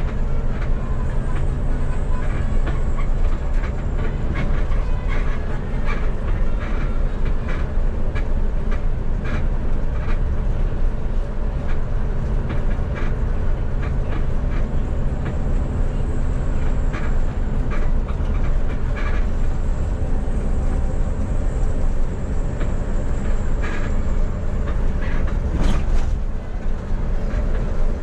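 Coach bus running: a steady low engine hum and road rumble, with frequent light rattles and clicks throughout.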